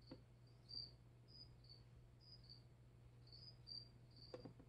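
Faint cricket chirping: short high chirps repeating about twice a second over a low steady hum, with a couple of soft taps from steel tweezers and a paper tube being handled, one at the start and one near the end.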